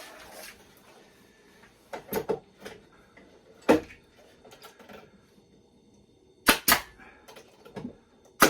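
Pneumatic nail gun firing into plywood: several sharp shots a second or more apart, some in quick pairs. The gun is misfiring, which the owner later traces to air pressure not turned up enough.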